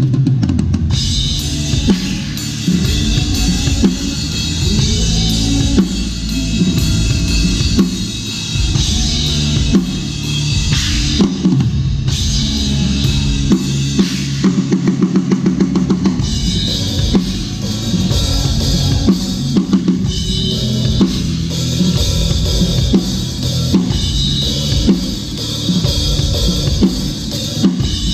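Drum kit played in a steady groove, with bass drum, snare and cymbals, over the rest of a band's music.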